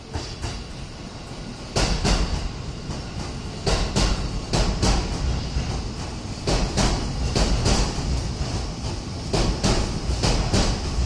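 JR E233 series electric train rolling over the points with a low rumble, its wheels clacking in close pairs as each bogie crosses the rail joints, repeating about once a second.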